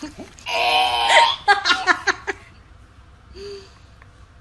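A woman laughing: one long breathy laugh about half a second in, then a string of short giggles, with a brief soft hum near the end.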